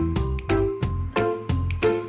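Background music with a steady beat, about three notes a second, over a strong bass.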